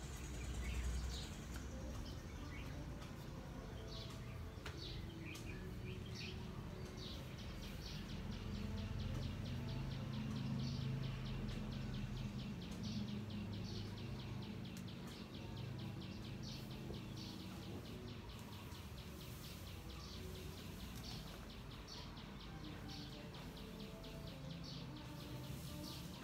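Outdoor ambience with a small bird chirping rapidly and repeatedly, several high chirps a second, over a low steady rumble that swells for a while in the middle.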